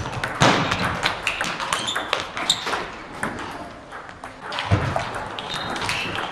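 Table tennis balls clicking on and off bats and tables in rapid, irregular rallies, many short sharp knocks with brief high pings. They ease off around the middle, and a low thud comes about two-thirds of the way through.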